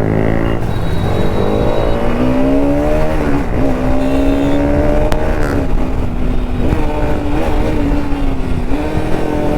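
Bajaj Pulsar RS200 single-cylinder engine running at speed under the rider, its pitch climbing, holding fairly steady and dipping briefly a few times as the throttle is worked, over wind rush.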